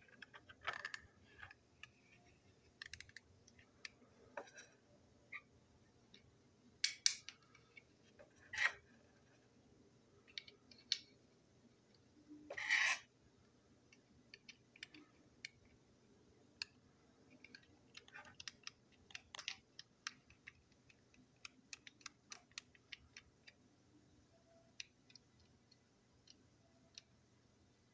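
Light, irregular clicks and taps of small plastic toy-engine parts being handled and unscrewed with a small screwdriver, with a few louder scraping handling noises around the middle.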